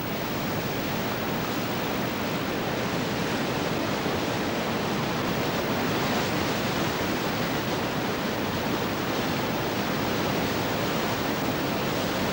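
River in flood: steady rushing of fast, churning floodwater.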